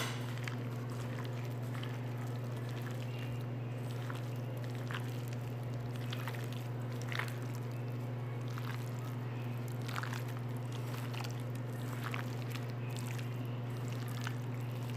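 Hand squishing and mixing wet marinated chicken pieces with flour in a stainless steel bowl: soft, irregular squelches and light scrapes. A steady low hum runs underneath.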